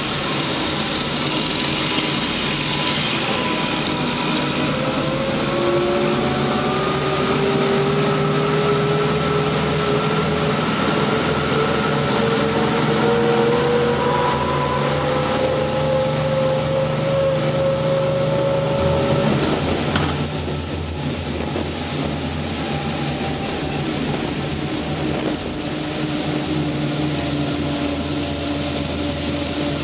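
Vehicle engine and drivetrain running on the move, with a whine that climbs slowly in pitch over about thirteen seconds as the vehicle gathers speed. About two-thirds of the way in the sound changes abruptly to a steadier engine note.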